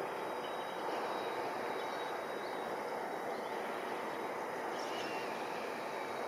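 Embraer regional jet's turbofan engines heard from a distance as a steady rushing noise with a faint whine.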